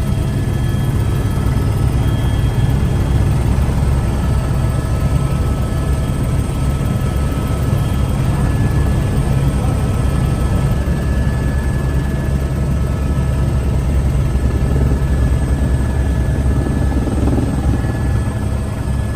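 Helicopter in steady flight heard from inside the cabin: a loud, unbroken low drone of rotor and engine, with a few faint steady whine tones above it.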